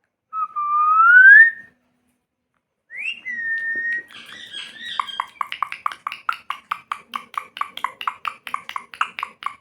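Pet parrot whistling: one loud rising whistle, then a shorter whistle, then a fast run of short repeated chattering notes, about five a second.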